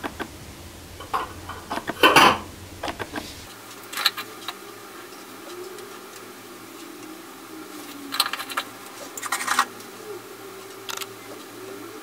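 Metal parts of a stainless-steel moka pot knocking and scraping as they are handled: a string of short clicks, the loudest about two seconds in, then a few more scattered clinks and scrapes later on.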